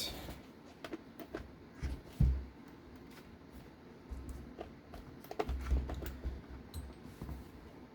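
Light plastic clicks and taps from a radio-controlled car's rear suspension being handled, with a few dull thumps as the chassis is moved about.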